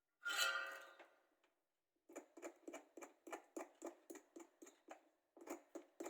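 A short clink that rings briefly, then a hand tool scraping over a phone circuit board in quick repeated strokes, about three a second, with a brief pause near the end. This is likely the paste left behind on the board after the chip's removal being scraped away.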